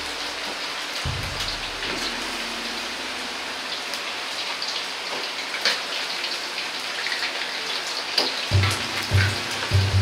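Battered chicken pieces deep-frying in hot oil in a wok: a steady sizzling crackle with scattered sharp pops. Low thumps come in about a second before the end.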